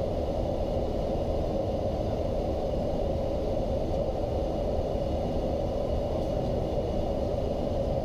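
Steady flight-deck noise inside a Boeing 737-800 in flight on its arrival: a constant rush of air with a steady hum running under it.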